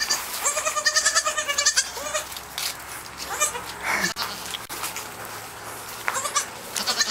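Day-old pygmy goat kid bleating: one long, high, quavering bleat about half a second in, a short one right after, then a few fainter calls. A couple of soft knocks near the middle.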